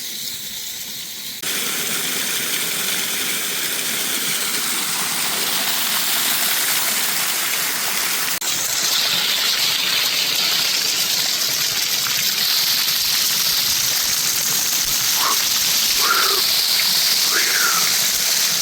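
Small waterfall rushing and splashing into its pool, a steady hiss of falling water that gets louder about eight seconds in. A few faint short calls sound near the end.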